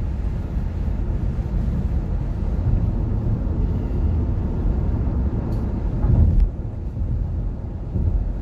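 Tyre and road noise heard inside a Nissan Leaf electric car's cabin at highway speed: a steady low rumble with no engine note. About six seconds in it swells louder briefly, then drops off sharply.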